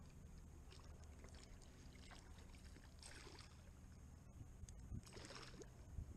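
Near silence: faint outdoor ambience of a steady low rumble, with two soft hissing swells about three and five seconds in and a few faint clicks.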